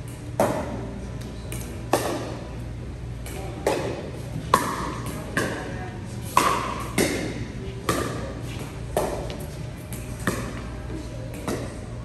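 A pickleball rally: a hard plastic ball popping off paddles in sharp, hollow hits, about one a second and some closer together, each ringing briefly in a large indoor hall.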